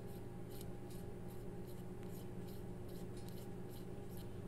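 Faint, irregular scratchy ticks of an aluminium fountain pen barrel being twisted onto its grip section, metal threads rubbing, over a steady low electrical hum.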